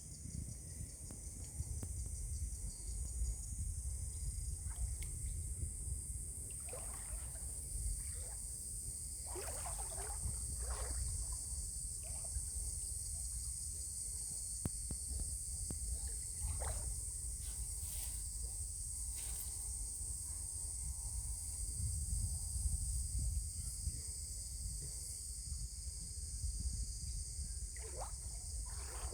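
Creek water sloshing and trickling in short splashy bursts close by, over a steady high insect chorus.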